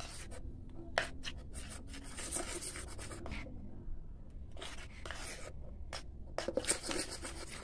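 A metal spoon stirring thick banana cake batter in a small bowl: soft scraping and squelching with irregular light clicks of the spoon against the bowl.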